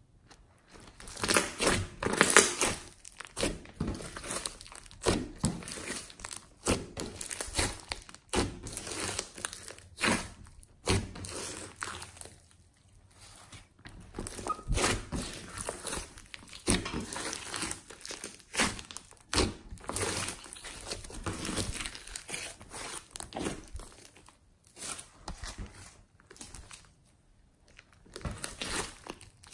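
Hands squeezing, stretching and folding thick glossy slime with small beads mixed in, making wet crackles, pops and tearing sounds in irregular bursts, with a couple of short pauses.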